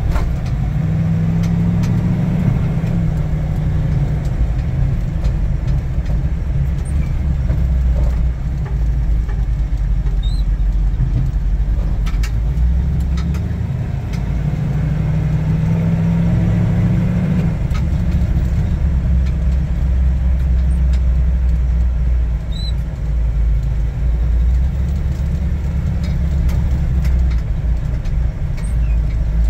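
The engine of a 1961 Chevrolet Apache 10 panel truck is running as the truck drives, heard from inside the cab as a steady deep rumble. The rumble grows stronger briefly about a second in, and again for a few seconds around the middle.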